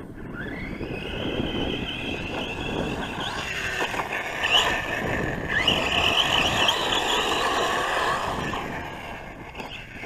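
Losi Lasernut U4 RC truck's brushless electric motor whining as the truck drives over dirt, its pitch rising with each burst of throttle. It grows louder after about a second and fades near the end.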